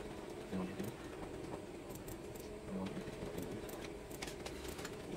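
Epson L120 inkjet printer's mechanism running faintly, with a few light clicks.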